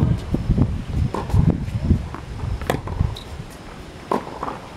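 Tennis balls struck by rackets during a rally, a few sharp pops with the clearest near the middle, over a low steady rumble.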